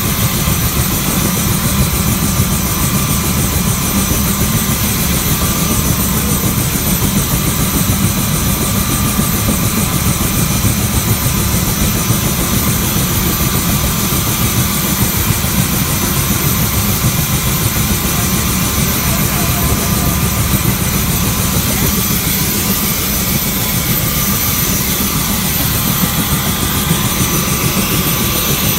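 Military helicopter's turbine engines and rotor running steadily, heard from inside the cabin: a loud, unbroken rumble with a constant high whine over it.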